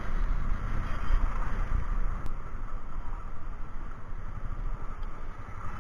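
Ride noise from an action camera on a moving vehicle in slow traffic: a steady low, uneven rumble of wind buffeting on the camera's microphone mixed with engine and road noise.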